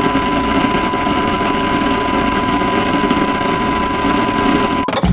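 Intro sound effect: a loud, dense rumbling noise with a steady high beep running through it. The noise cuts off suddenly near the end and a deep boom lands.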